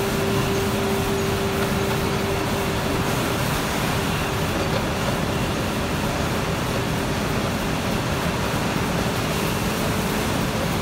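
Steady industrial machinery noise of a bottling production line: an even hiss and rumble with a steady hum that is strongest for the first few seconds and then fades.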